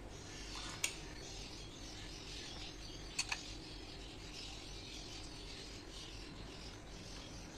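Metal spoon spreading thick yogurt around a glass bowl: a soft continuous scraping. The spoon clinks against the glass once about a second in and twice in quick succession around three seconds in.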